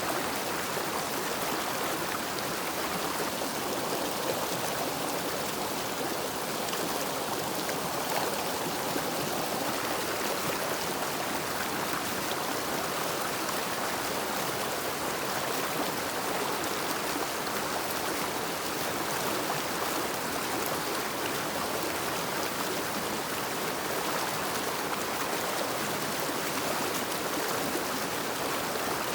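River water flowing: a steady, unbroken rush of running water.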